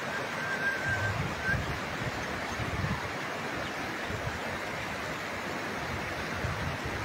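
A swollen river in flood, its water rushing steadily past a low bridge. Occasional low buffets of wind on the microphone.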